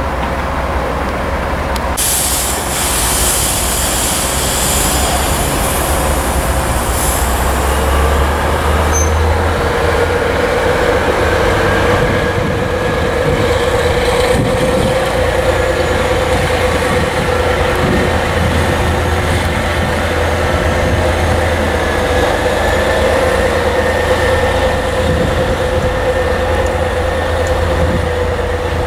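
The diesel engine of a DB class 363 shunting locomotive runs steadily as it moves a coupled electric locomotive, giving a continuous drone with a deep rumble. A held engine tone grows stronger about a third of the way in.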